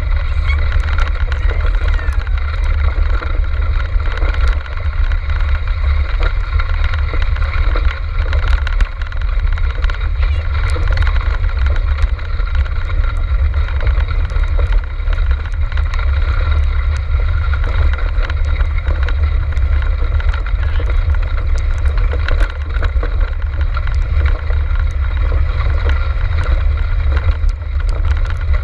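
Dryland dog cart rolling along the race trail, heard from a camera mounted on the cart: a loud, steady low rumble of wheels and wind on the microphone, with scattered small rattles and clicks from bumps in the ground.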